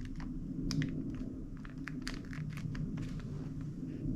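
Faint scattered clicks and light rustling of rubber grip halves being handled and dry-fitted on a motorcycle handlebar, over a steady low hum.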